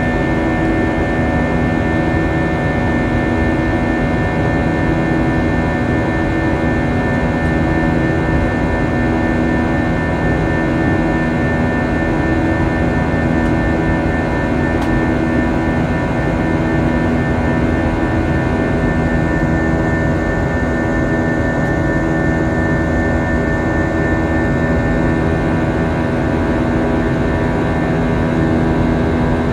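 Airbus A320's jet engines and airflow running steadily in flight, heard inside the passenger cabin: a constant rushing noise with a few steady humming and whining tones.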